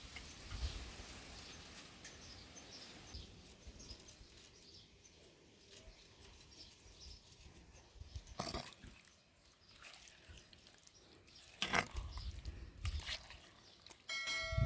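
Quiet outdoor ambience with a couple of sharp knocks, then near the end a single steady-pitched animal call lasting about a second.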